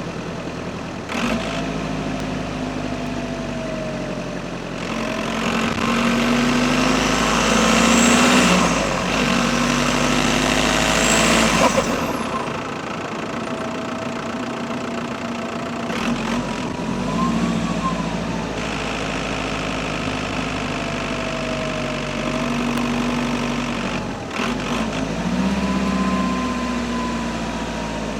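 Audi A6 (4F) 2.0 TDI Pumpe-Düse four-cylinder diesel running under varying throttle, its turbocharger whistle rising and falling several times. The engine gets louder in a stretch about a third of the way in, with the whistle climbing, then drops off abruptly.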